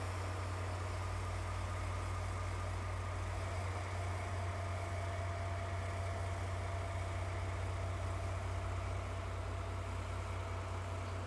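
DE10 diesel locomotive's V12 diesel engine running at a steady low idle, with a faint steady whine joining in about three seconds in and fading near the end.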